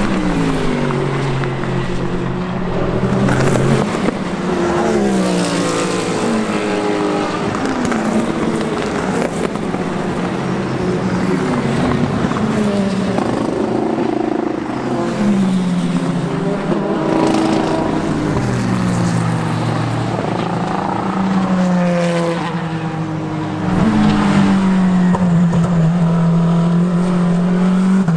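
IMSA race cars going past one after another at speed, each engine note sliding down in pitch as it passes. Near the end a louder car holds a steady high note.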